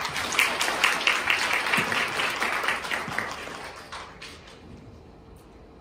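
Audience clapping, starting right away and fading out after about four seconds.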